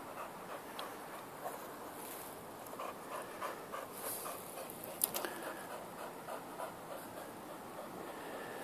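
Boxer dog panting rapidly, with one sharp click about five seconds in.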